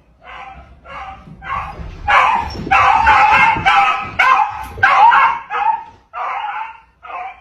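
A dog barking and yipping in a fast run of short calls, about two or three a second, loudest in the middle.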